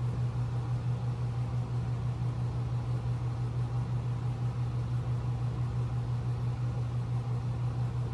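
Household air-circulation fan running steadily close to the microphone: a low, even hum with a rush of air.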